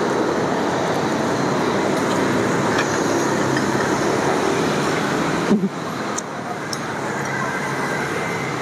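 Steady rushing background noise like passing road traffic. It drops suddenly about five and a half seconds in and carries on a little quieter.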